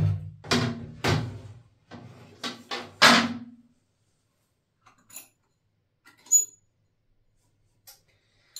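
A toilet seat being handled during a repair: a run of about seven knocks in the first three and a half seconds, then a few faint clicks and a small clink.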